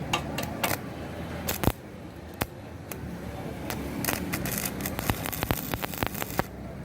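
Irregular metallic clinks and knocks from steel parts and tools being handled, with a loud knock about a second and a half in and quicker clusters of clicks later, over a steady low workshop rumble.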